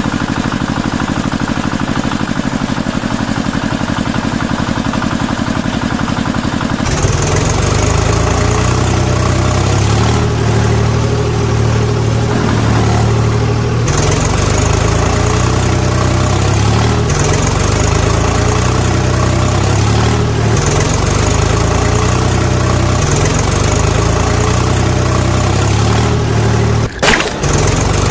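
Diesel tractor engine running at a steady idle. About a third of the way in, the sound switches abruptly to a deeper, louder engine note, which carries on evenly apart from a brief break near the end.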